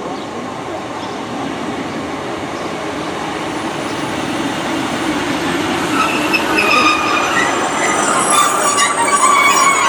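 Class 150 diesel multiple unit pulling into the station: a rumble that grows steadily louder, with high squealing from its brakes and wheels starting about six seconds in as it slows to stop.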